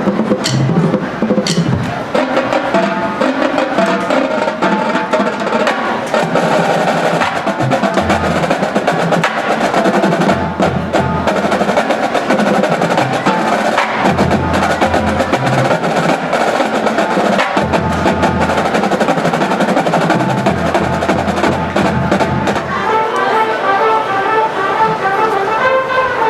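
A drum and bugle corps playing live: brass horns over snare drums and other percussion, with held low bass notes coming in and out through the middle.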